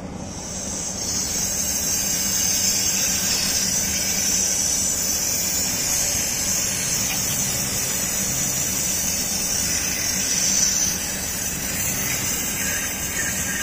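Pressurised gas from a cylinder hissing steadily out through an air conditioner's refrigerant line connection, purging the air out of the connecting pipes. It starts about half a second in and eases off near the end.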